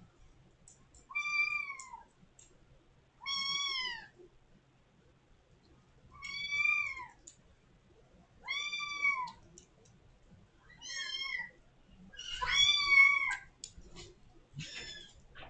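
Kitten meowing loudly and over and over at a door, six long calls about two seconds apart, each rising and then falling in pitch: a demand to be let out of the room.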